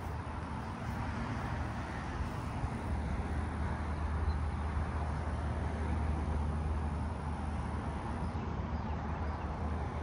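Bard 3-ton wall-mounted heat pump running steadily in cooling mode: the rush of its outdoor fan air over a steady low hum.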